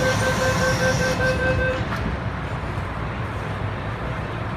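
MTR M-Train door-closing warning beeping rapidly, stopping about two seconds in as the sliding doors shut with a knock. The train's steady low hum runs underneath.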